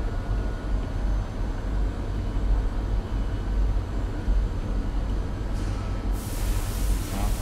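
Steady low hum of running workshop machinery, with a loud hiss starting about six seconds in.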